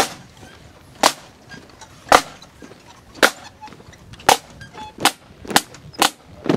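Sharp single drum strokes from a pipe band's drums, one about every second, coming quicker, roughly two a second, near the end: the drummers beating time just before the pipes strike in.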